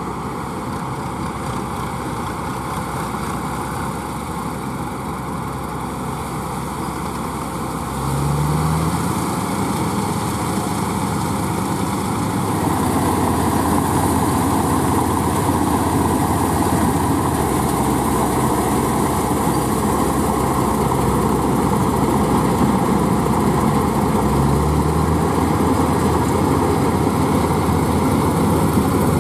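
Hind 999 combine harvester and Eicher 485 tractor engines running together steadily while the combine's unloading auger pours grain into the tractor's trolley. The sound gets louder about eight seconds in, with a short rise in pitch then and again near the end.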